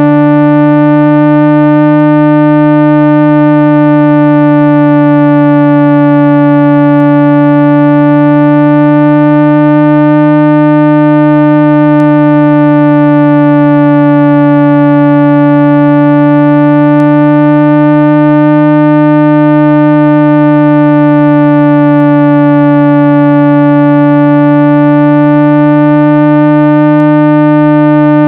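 Speaker-cleaning tone for pushing water and dust out of a phone speaker: a loud, continuous synthesized hum with many overtones, its pitch wavering slowly up and down.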